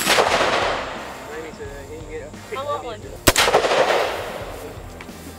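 Two single shots from an AR-15-style carbine, one right at the start and one about three seconds later. Each is a sharp crack that echoes away over about a second.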